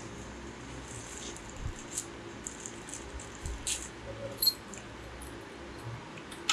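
Workshop background: a steady low hum with scattered light clicks and taps, the sharpest about halfway through.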